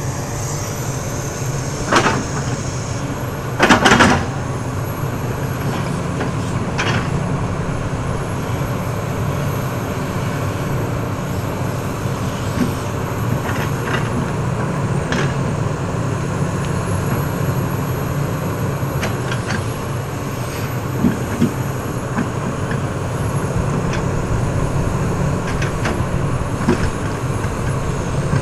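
SANY SY365H crawler excavator's diesel engine running steadily under work, with knocks and scrapes as the bucket drags through soil and stones: a sharp one about two seconds in, the loudest and longest about four seconds in, another around seven seconds and a few lighter clicks later.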